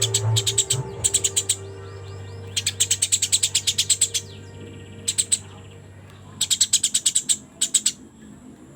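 Eurasian tree sparrow chirping in quick runs of sharp chirps: about seven bursts, the longest about a second and a half, with pauses between. Faint music plays underneath and fades midway.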